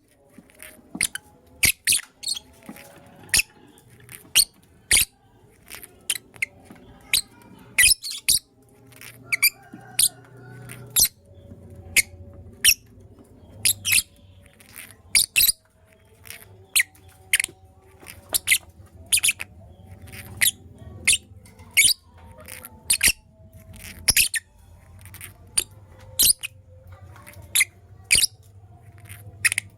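Lovebirds chirping: very short, shrill, high-pitched calls in quick irregular runs of about two to three a second, over a faint low hum.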